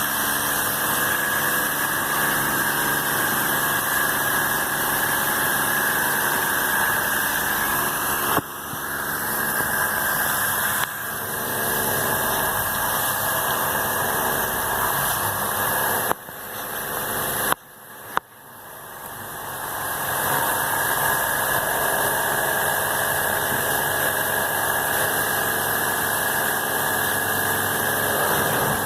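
Electric pressure washer running steadily with a loud hiss, used to clean an air conditioner. It drops out briefly a few times, around a third of the way in and again twice a little past the middle, then comes back up.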